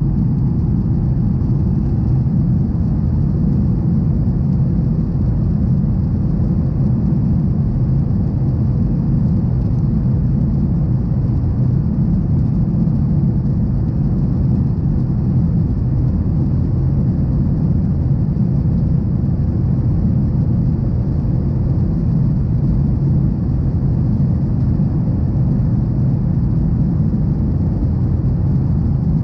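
Steady cabin noise of a Boeing 737 in flight, heard inside the passenger cabin: a constant low rumble of the turbofan engines and rushing air, unchanging throughout.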